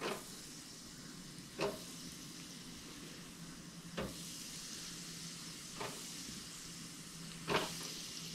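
Battered fish chunks dropped one by one into a deep fryer's wire basket, about five soft taps a second or two apart, over a faint steady hiss from the heated fryer oil.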